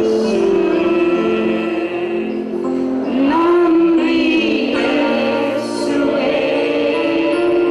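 Voices singing together in a slow worship song, holding long notes.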